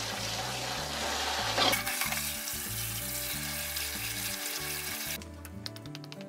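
Cold tap water running steadily over blanched udon noodles as they are rinsed, stopping about five seconds in.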